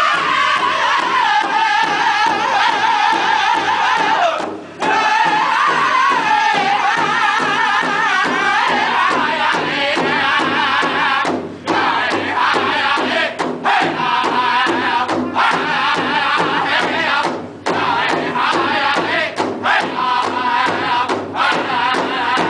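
Powwow drum group: several men singing loudly together in a chant-like song while beating a steady rhythm in unison on a large hide drum. The singing drops out briefly a few times, at about 4.5, 11.5 and 17.5 seconds in.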